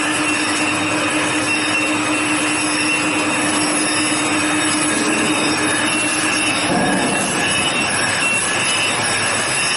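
Automatic wet-glue linear labeling machine running, with a steady mechanical clatter and several thin, high-pitched whining tones. A lower hum cuts out about seven seconds in.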